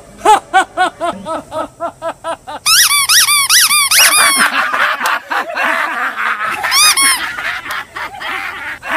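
Men laughing loudly: a rhythmic ha-ha-ha of about four bursts a second, then from about three seconds in several men laughing together, with shrill, high-pitched cackles.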